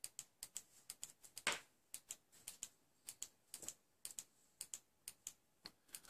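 Faint, irregular light clicks and ticks, a few a second, with one louder click about a second and a half in.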